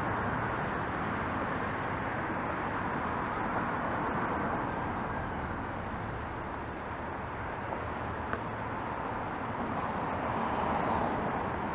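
Road traffic on a busy city street: a steady hum of cars and tyres, swelling as vehicles pass about four seconds in and again near the end.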